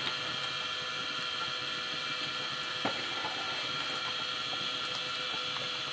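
Steady hiss and hum of a gas stove with a pot of rice, lentils and vegetables simmering on it, and one light knock about three seconds in.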